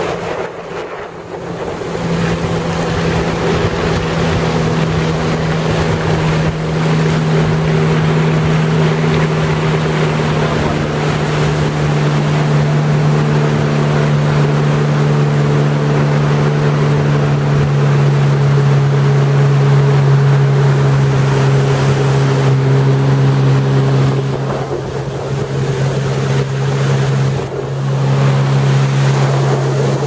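Jet ski engine running steadily at cruising speed, with water rushing past and wind buffeting the microphone. The engine note dips briefly about a second in and again twice near the end as the throttle eases.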